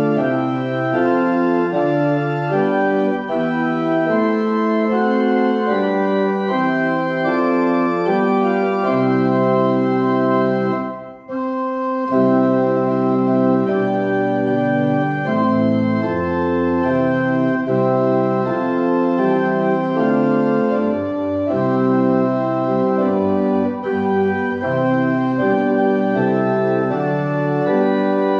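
Church organ playing a hymn tune in full sustained chords, phrase by phrase, with a brief break between phrases about eleven seconds in.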